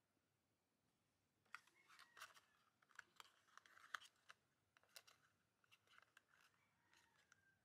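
Faint handling of a miniature cardboard toy box: small papery crinkles, scrapes and clicks as fingers turn and open it, starting about a second and a half in.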